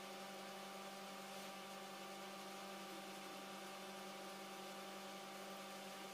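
A faint, steady hum over an even hiss, with no distinct events.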